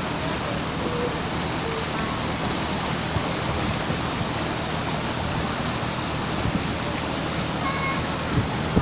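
A steady rush of water and wind over the boat, with the low, even hum of the boat's engine running underneath.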